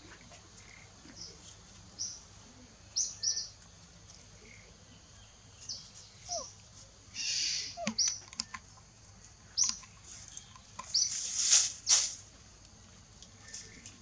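Short, high chirps, singly or in pairs every second or two, over rustling of dry bamboo and leaves as infant macaques climb a stalk. The rustling is loudest about eleven seconds in.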